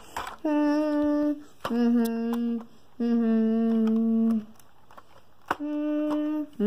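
A child humming a slow run of four long, level notes with short pauses between them.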